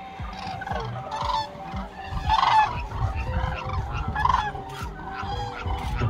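A large flock of common cranes calling in flight, many trumpeting calls overlapping without a break, loudest about two and a half seconds in.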